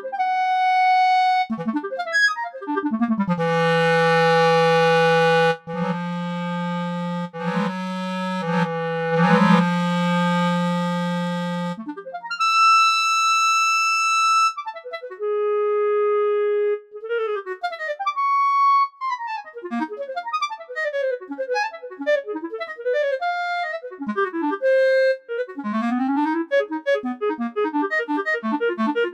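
Solo clarinet played back by Sibelius notation software's sampled clarinet: a stretch of low held notes with a breathy hiss, then fast runs and arpeggios sweeping up and down the range, broken by a few held high notes.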